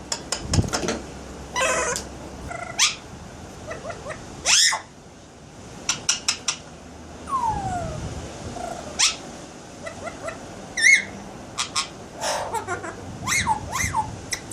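Alexandrine parakeet making mimicked sound effects: a string of sharp clicks, a few short shrill calls, and falling whistle-like notes, with pauses between them.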